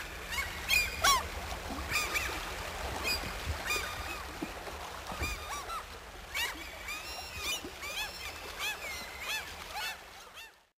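A flock of waterbirds calling, many short arching calls overlapping over a steady low rumble, until the sound cuts out near the end.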